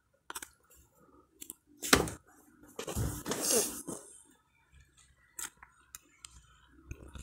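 Scattered small clicks and knocks in a small room, the sharpest about two seconds in, with a longer rustling patch around three to four seconds.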